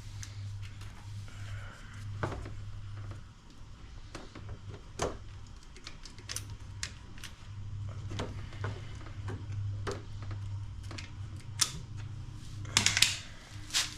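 Sharp scattered clicks and snips of cutters trimming back and stripping thin light wires, with a close cluster of louder snips near the end, over a steady low hum.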